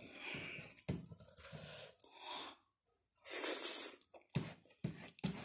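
A person eating noodles by hand close to the microphone: soft chewing, a loud breathy intake of air a little past three seconds in, then a quick run of wet lip smacks.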